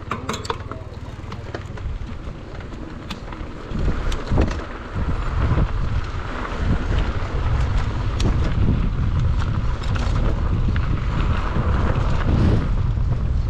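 Wind buffeting the microphone of a camera on a moving mountain bike, with scattered clicks and rattles from the bike over the trail. The rumble grows louder about four seconds in, as the riding picks up.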